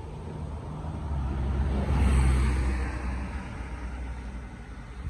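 A car running with a steady low engine hum, its sound swelling to its loudest about two seconds in and then fading.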